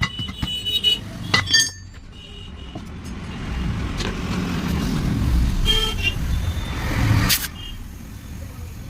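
A road vehicle passing, its noise swelling for a few seconds and then falling away, with a short horn toot about six seconds in. A few sharp clicks are heard in the first couple of seconds.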